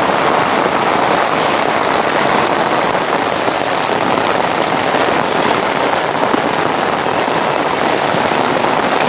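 Heavy rain falling steadily, a dense even hiss, picked up by a microphone inside a raincoat, mixed with muddy rainwater runoff rushing down a dirt path.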